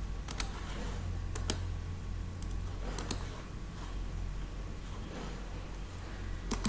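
Computer mouse and keyboard clicks, a dozen or so irregular taps, over a low steady hum.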